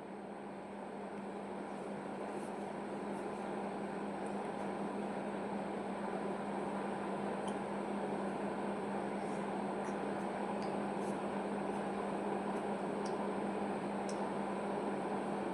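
Steady mechanical hum and hiss, growing slightly louder over the first few seconds, with a few faint ticks.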